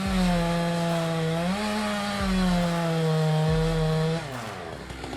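Petrol chainsaw running at high speed through wood, a steady engine note that rises slightly about a second and a half in, then falls away near the end as the saw eases off.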